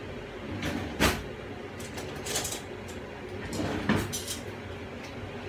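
Kitchen cupboard and utensil handling: a few separate knocks and clatters as a cupboard or drawer is opened and shut and a utensil is taken out. The loudest knock comes about a second in.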